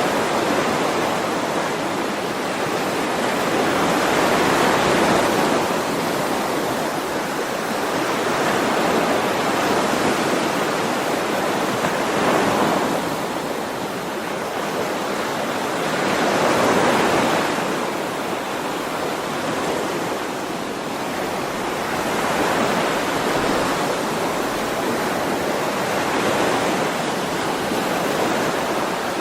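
Ocean waves washing onto a shore, a continuous surf noise that swells and eases every four or five seconds.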